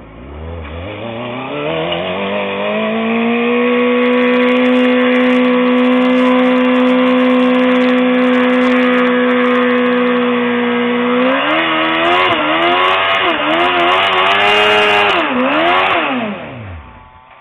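Suzuki GSX-R 750's inline-four engine revving up and held at high, steady revs as the rear tyre spins on the asphalt in a burnout. After about eleven seconds the revs are blipped up and down several times, then drop away near the end.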